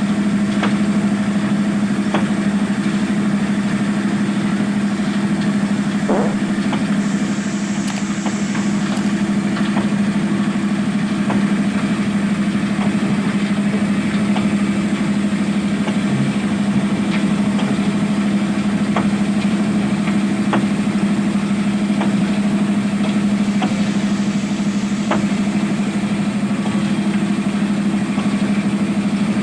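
Zoomlion ZE215E excavator's diesel engine running at a steady, even hum, with a few faint knocks.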